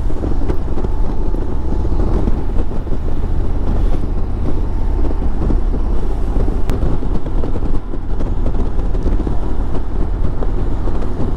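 Harley-Davidson Ultra Limited touring motorcycle riding at road speed: steady engine and road noise mixed with wind rushing over the microphone.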